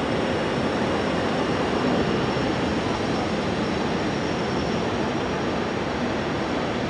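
Boeing 777-300ER's twin GE90-115B turbofans at taxi power: a steady rushing jet noise with a faint high whine over it.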